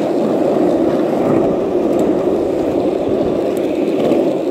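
Skateboard wheels rolling fast over rough asphalt: a steady, even rumble.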